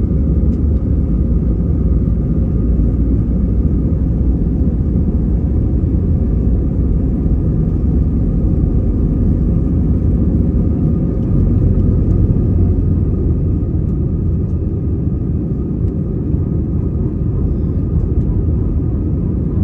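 Jet airliner's engines at takeoff thrust and wheels on the runway, heard inside the cabin: a loud, steady rumble with a faint hum from the engines, easing slightly in the second half as the aircraft lifts off.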